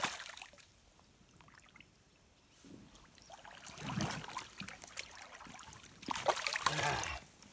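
A hooked brown trout splashing and thrashing at the surface of a shallow stream, fading away about half a second in. Water then sloshes and splashes again a few seconds in and near the end as the wading angler reaches in to take the fish by hand.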